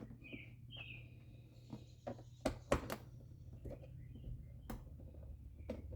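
Hand tool working the T20 Torx screws out of a plastic airbox lid: a few sharp clicks and knocks, the loudest cluster about two and a half to three seconds in. Under them runs a low steady hum, and a few short high chirps come early on.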